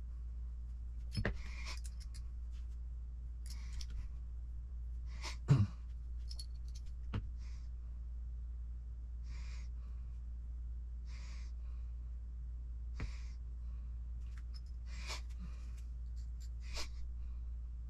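Hand tools and small kit parts handled on a work mat: a few scattered clicks and knocks, the loudest about five and a half seconds in. Steady breathing recurs about every two seconds over a constant low hum.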